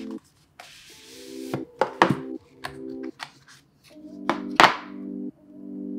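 Cardboard packaging being handled: the Apple Pencil's cardboard tray slides out of its sleeve with a soft scrape, then sharp taps and knocks of cardboard, the loudest about two seconds and four and a half seconds in. Background music plays short, repeated chords underneath.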